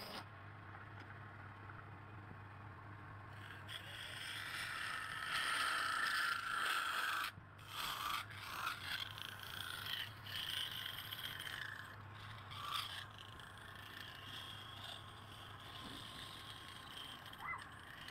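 Wood lathe running with a steady motor hum while a turning tool scrapes against the spinning wood. The scraping swells and eases in uneven strokes, with a brief break about seven seconds in.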